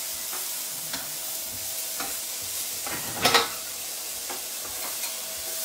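Chopped onions sizzling steadily in hot avocado oil in a stainless steel pan as their water cooks off, with a spoon stirring and scraping against the pan in small clicks, loudest a little past three seconds in.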